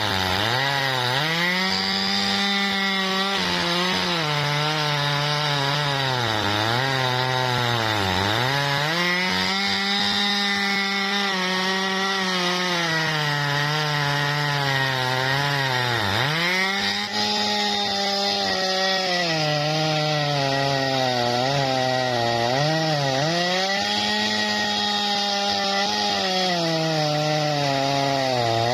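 Two-stroke Jonsered chainsaw ripping lengthwise through tough bendo wood at high revs. Its pitch sags sharply again and again as the chain bogs in the cut, then picks back up.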